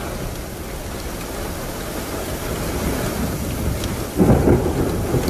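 Heavy storm: a steady rush of wind and rain, with a sudden louder low rumble about four seconds in.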